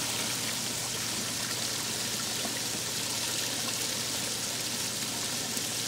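Garden water feature running: water spilling steadily over the lip of a steel trough and splashing into the basin below.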